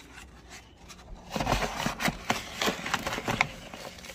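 A small plastic nursery pot scooped through gritty potting mix of peat moss, perlite and vermiculite in a plastic bin: a quick run of crunching, scraping strokes with sharp clicks, starting about a second in and easing off near the end.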